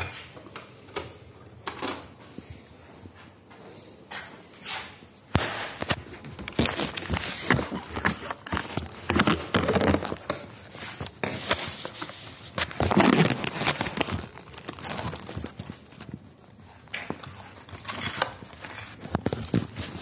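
Handling noises: scattered clicks and knocks of kitchen utensils and items being moved about, with rustling, sparse at first and busier from about five seconds in.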